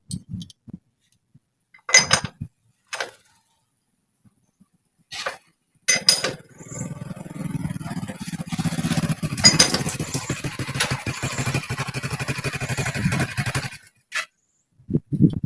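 A few sharp metallic clicks and knocks, then a machine runs for about eight seconds with a fast, rapid pulsing and stops abruptly.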